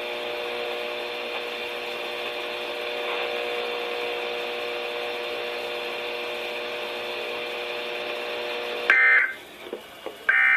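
A steady electronic hum of several fixed tones on the weather-radio channel, typical of dead air between broadcasts. About nine seconds in it cuts off, and the first two of three short, high-pitched digital data bursts follow about a second and a half apart: the SAME header that opens the next NOAA Weather Radio / Emergency Alert System alert.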